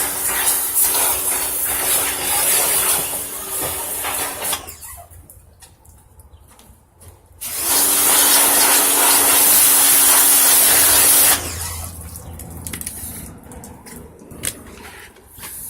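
Pressure washer jet spraying water over an engine to rinse off degreaser, a steady hiss of spray over the pump's steady hum. It stops after about four and a half seconds. About three seconds later it starts again, louder, and stops about eleven seconds in.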